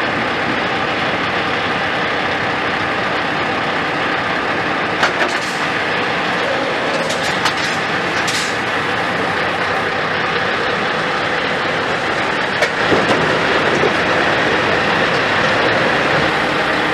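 Scania S 730 truck's V8 diesel engine running steadily close by, with a few short clicks and rattles about five to eight seconds in.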